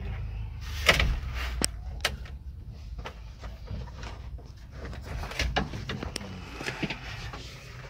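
Sharp clicks and knocks of hard plastic as a vehicle's instrument cluster is worked loose from the dashboard and its speedometer cable and wiring are unplugged, the loudest click about a second in.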